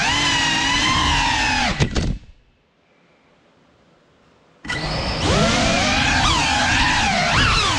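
GEPRC Cinelog35 cinewhoop's brushless motors and ducted propellers whining, the pitch rising and falling with throttle. About two seconds in there are a few sharp knocks and the motors cut out, leaving near silence for about two seconds, then the motors spin up again and whine on with shifting pitch.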